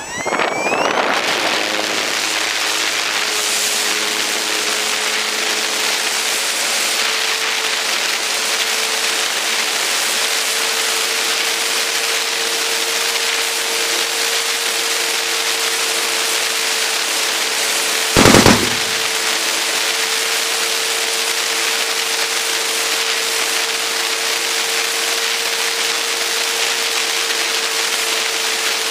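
Onboard sound of a radio-controlled model Spitfire in flight: its motor and propeller running with a steady whine under a constant rush of wind noise on the mounted camera's microphone. A brief loud crackle about 18 seconds in.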